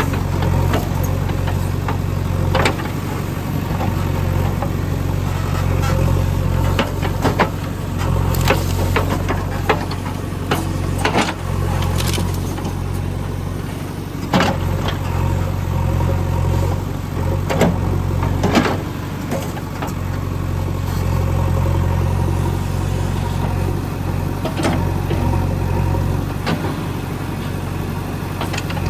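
JCB 3DX backhoe loader's diesel engine running steadily while it digs soil, with many short sharp knocks and clanks scattered through.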